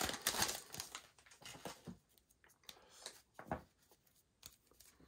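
Trading-card pack wrapper crinkling and tearing as a pack is opened, with cards handled. A few faint clicks and taps of card handling follow in the second half.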